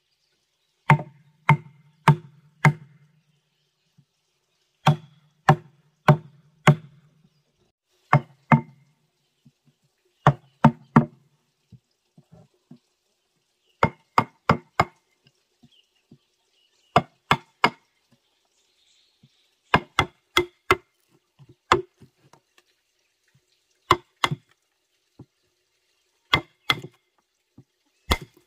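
A steel chisel being struck with a block of wood used as a mallet, cutting into a large tree stump. The sharp knocks come in clusters of two to four, about half a second apart, with short pauses between clusters. Each knock rings briefly, and those in the first ten seconds carry a deeper thud.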